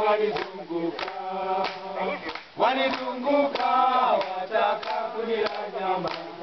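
Group of Tanzanian mountain porters singing a celebration song together in chorus, with a steady beat of sharp claps about twice a second.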